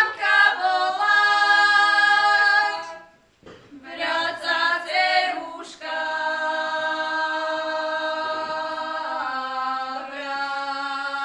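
Small group of women singing a traditional Slovak wedding song unaccompanied, in long held notes. A first phrase ends about three seconds in, and after a short breath a second, longer phrase follows.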